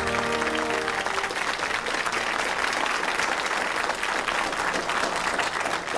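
Studio audience applauding, a dense steady clatter of many hands clapping. Closing theme music ends about a second in, just as the applause takes over.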